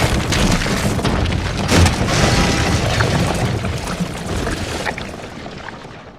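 Cartoon explosion sound effect: a loud boom and rumble with scattered impacts, dying away over the last second or so.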